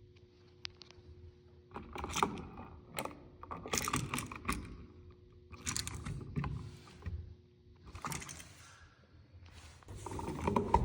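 Hand tools working copper electrical wire at a GFCI receptacle: irregular clicks, scrapes and rattles of wire strippers and handling, in clusters starting about two seconds in.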